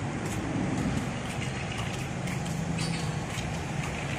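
Road traffic with a heavy vehicle's engine running, a steady low rumble.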